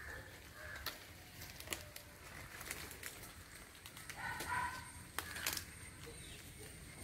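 Leaves rustling and small sharp snaps as green peppercorn spikes are plucked by hand from a pepper vine, with a bird calling briefly about four seconds in.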